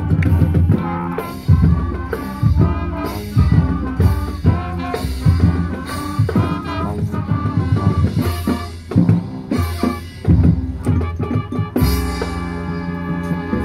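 High school marching band playing its field show: brass chords over drumline and bass drum hits, settling into a held brass chord near the end.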